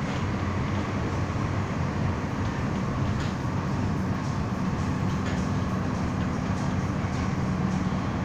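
MTR Tung Chung Line A-Train running at speed, heard from inside the passenger car: a steady rumble with a low hum and a few faint ticks.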